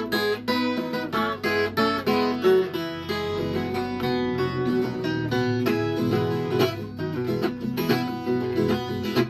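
Viola caipira, the Brazilian ten-string folk guitar, playing an instrumental passage of quick plucked and strummed notes.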